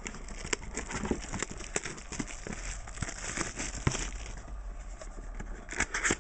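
Trading card packaging being opened and handled: a continuous run of crinkling and small crackles and clicks from the wrapper and cards.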